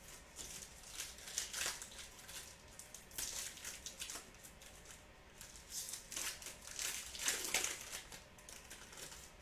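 Trading card pack wrapper crinkling in irregular bursts as it is handled and opened, loudest about seven seconds in.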